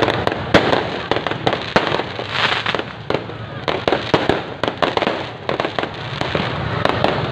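Fireworks and firecrackers going off in a continuous din, with many sharp, irregular bangs and crackling one after another.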